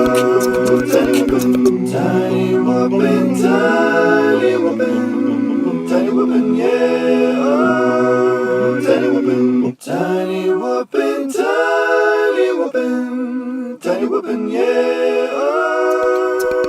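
Background music: a cappella vocals, several layered voices singing over a sustained low hum that drops out about two-thirds of the way through, with a few brief breaks.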